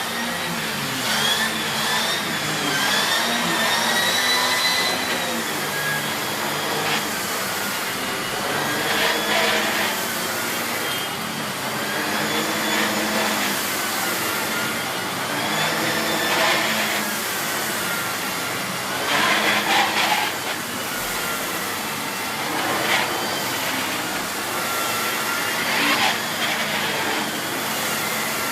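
Miele S8 bagged cylinder vacuum cleaner running while vacuuming a floor, a steady rush of air with a high motor whine that wavers up and down in pitch. A few short louder bursts come through, around the middle and near the end.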